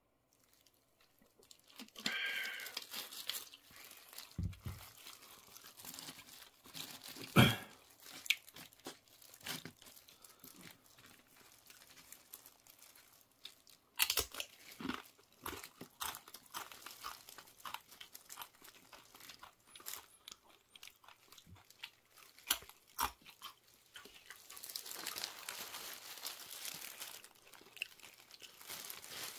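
Eating sounds: crunching and chewing tortilla chips and burrito, with sharp crunches throughout, the loudest about seven and fourteen seconds in. Near the end, steady crinkling of the paper wrapper and plastic glove as the burrito is handled.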